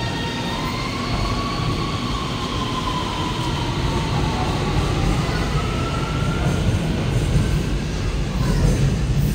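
Shenzhen Metro Line 1 train moving at the platform: a steady low rumble under an electric motor whine that wavers in pitch, then glides upward about halfway through.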